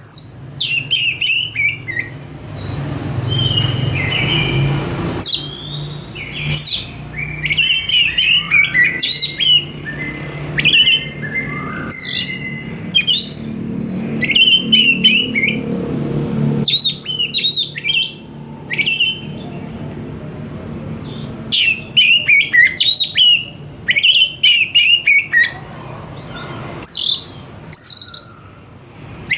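Oriental magpie-robin singing vigorously: a fast, varied string of high chirps, trills and whistled phrases with short breaks between them. A low hum runs under the song through roughly the first half.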